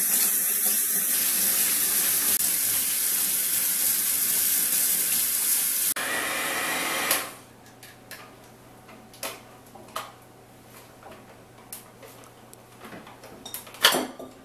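Kitchen tap running full into a stainless steel sink with hands being washed under it, a steady rush of water that stops about six or seven seconds in. After that it is quiet apart from a few light knocks.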